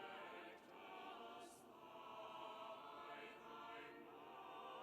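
Choir singing faintly in long held notes that shift slowly from chord to chord.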